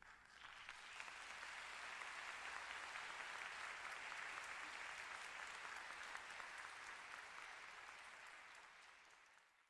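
Audience applauding, swelling in the first second, then fading away over the last few seconds before cutting off.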